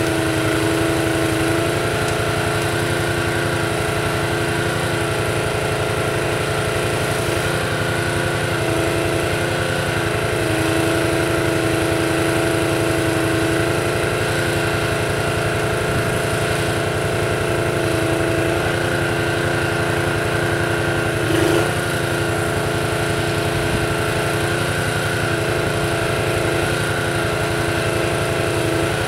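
Small engine running steadily under load, powering a Jussi 400 ATV crane as it lifts and swings. Its steady tones dip and shift a little from time to time, with a brief louder moment about three quarters of the way through.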